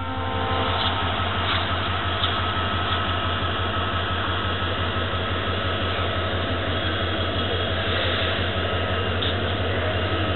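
EMD WDP4 diesel locomotive's engine running steadily down the platform, a low, even throb under a general hiss of noise.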